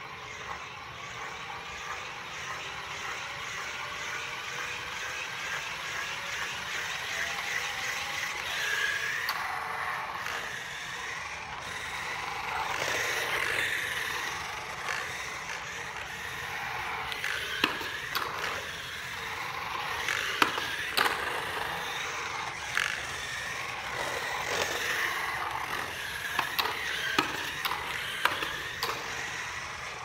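Racing-modified Roomba driven by planetary gearmotors running across a concrete floor: a motor and gear whine that glides up and down in pitch as it speeds up, slows and turns, over the rumble of its wheels rolling on the concrete. Several sharp clicks or knocks come in the second half.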